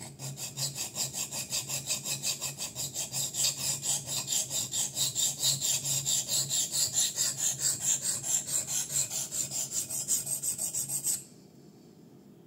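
A folding knife's 154CM steel blade stroked rapidly back and forth across a wet DMT Extra Coarse diamond sharpening plate, a rhythmic rasping scrape at about four to five strokes a second that stops abruptly near the end. This is the coarse grinding stage, the plate taking off a lot of metal.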